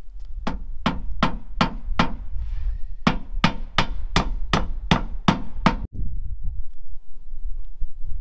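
Hand hammer driving nails with quick, evenly spaced blows, about three a second. There are two runs, five strikes and then eight after a short pause, ending about six seconds in.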